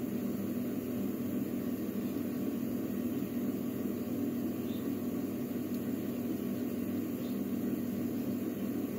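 Steady low hum with a hiss over it, unchanging throughout; at most a couple of very faint small ticks.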